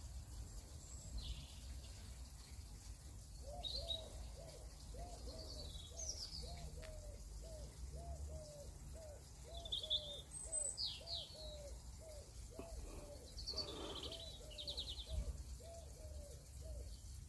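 Pigeon cooing faintly: a steady run of low repeated coos, about two a second, with short high chirps from small birds over it.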